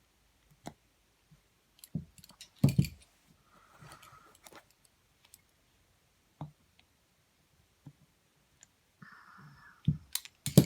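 Scattered clicks and knocks of hand tools and small metal engine parts being picked up and set down, with a couple of brief scraping sounds.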